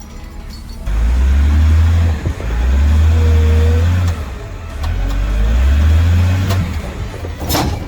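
Heavy machine's diesel engine revving hard in three long surges, dropping back briefly between them, with a sharp bang near the end.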